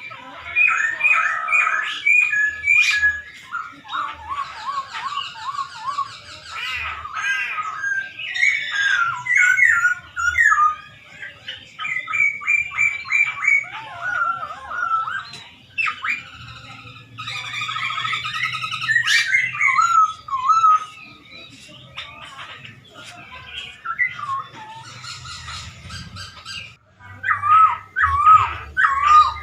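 Poksay Hongkong (masked laughingthrush) singing a long, varied song of slurred whistles, quick repeated chattering notes and trills, broken by short pauses.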